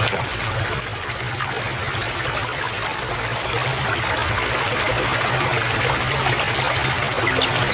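Stream of running water trickling and splashing in a steady flow.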